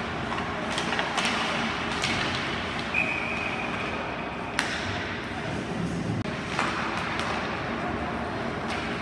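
Ice hockey game in an arena: a steady wash of skates and play on the ice, broken by several sharp knocks of sticks and puck, with a short high whistle about three seconds in.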